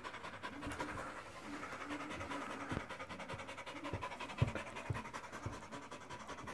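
A dog panting quickly and rhythmically, with a few low thumps, the loudest a little past the middle.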